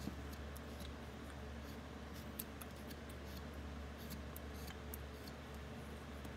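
Whittling knife paring small shavings off a wooden face carving: faint, irregular crisp clicks of the blade slicing through the wood, over a steady low hum.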